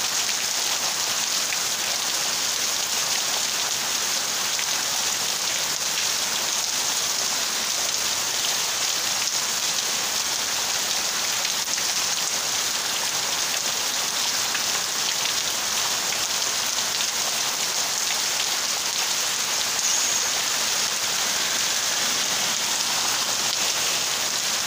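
Heavy rain pouring down steadily, a dense, even hiss that never lets up.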